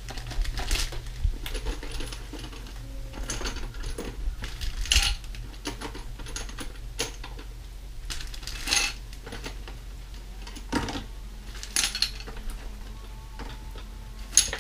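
Small metal drum hardware parts, screws and fittings, clinking and rattling irregularly as they are dropped into and handled in a small plastic cup, over a steady low hum.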